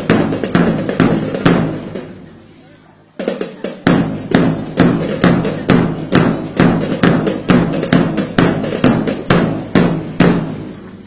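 Kalinga gangsa, flat bronze gongs, beaten together in a quick even rhythm of about three strokes a second, each stroke ringing briefly. The beating fades out about two seconds in and starts again a second later.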